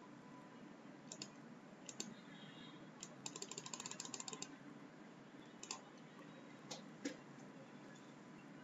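Faint computer keyboard typing: a quick run of about ten keystrokes about three seconds in, with a few single key or mouse clicks before and after, over a low steady hum.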